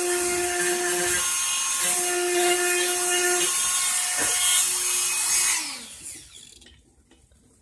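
Dremel rotary tool with a small engraving cutting bit, whining at high speed as it carves into birch wood, the tone wavering as the bit bites. About five and a half seconds in it is switched off, and its pitch falls as it spins down.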